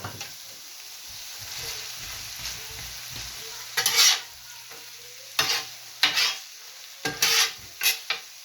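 Ground-beef, onion, pepper, sauce and rice filling sizzling steadily on a steel flat-top griddle. From about halfway in, a utensil scrapes across the griddle several times in short, sharp strokes as the filling is worked together.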